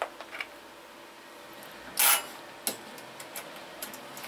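Plastic colander and mixing bowl being handled: light clicks and knocks, with one short, louder scrape about two seconds in.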